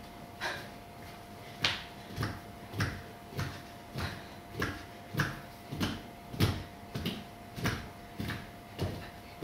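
Bare hands and feet slapping and thudding on a hard floor in a steady rhythm, about one every 0.6 seconds, as dancers move along in a crouch, over a faint steady hum.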